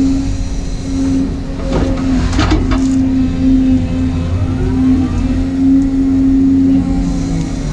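Volvo excavator's diesel engine and hydraulics running under load, heard inside the cab: a steady low hum with a whine that shifts in pitch as the boom and bucket move. A few sharp clunks come about two seconds in.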